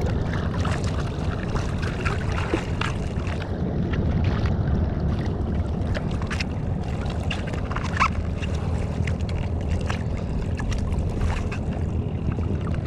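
Choppy sea water slapping and splashing right at the microphone as a small boat rocks on the waves, over a steady low rumble. Sharp splashes break through now and then, the loudest about eight seconds in.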